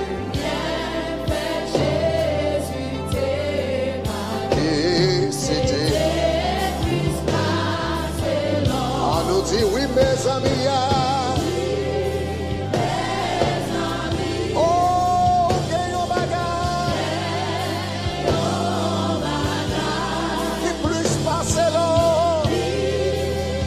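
Gospel worship song in Haitian Creole: several voices singing together over a live band, with a bass guitar playing steady low notes and cymbals keeping time.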